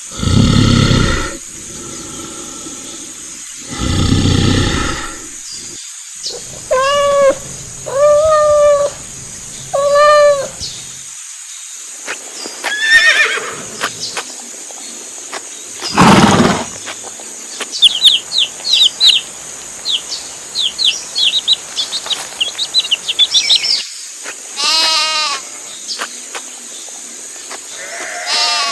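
A string of separate farm-animal calls: two loud, rough calls near the start, then several pitched bleats, a run of many short, high chirps in the middle, and another wavering bleat near the end.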